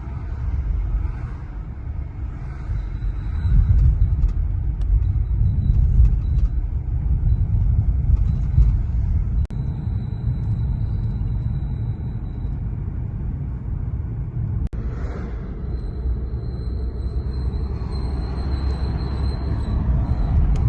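Mercedes-Benz E450's brakes giving a thin, high-pitched whistle that comes and goes in several stretches, the longest lasting a few seconds, over the low rumble of the car driving. The squeal occurs with the brake pedal not pressed, a fault the owner has not solved.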